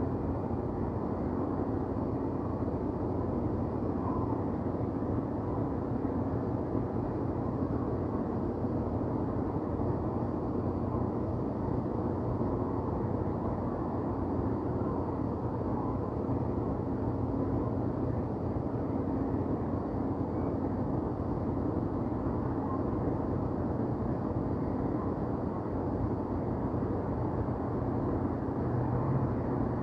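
City ambience: a steady, low rumble of distant traffic, even throughout, with no single event standing out.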